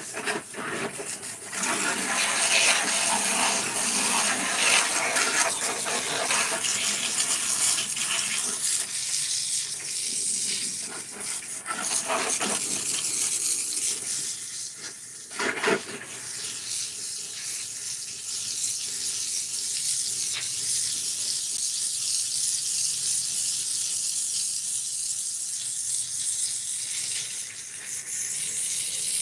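Water spraying from a hose onto the plastic deck of a Ryobi electric lawnmower and splashing on wet concrete: a steady hiss and splatter that shifts as the spray moves. There is one short knock about halfway through.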